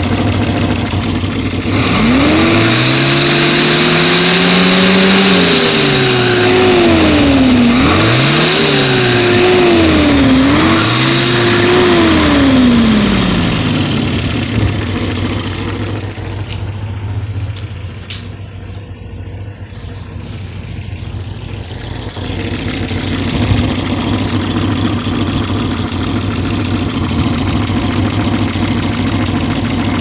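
1970 Opel GT's engine revved from idle three times, one long rev held for several seconds and then two shorter ones, with a high screech over the top while the revs are high and a whirring hum as the revs fall. It then settles back to a steady idle, fainter for a few seconds in the middle. The owner cannot trace the noise, which began after he fitted a new fan, alternator and water pump.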